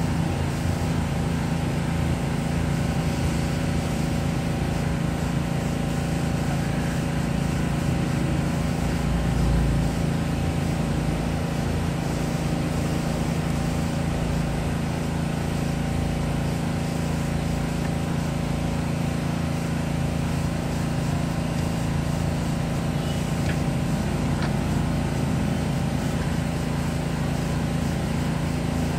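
Steady low mechanical hum holding a constant pitch throughout, from a motor running nearby.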